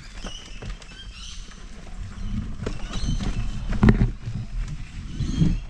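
An Inmotion V12HT electric unicycle rolling over a rocky dirt trail. A low rumble from the tyre and from wind on the microphone builds about two seconds in. Hard knocks come as the wheel hits rocks, the loudest about four seconds in and another near the end.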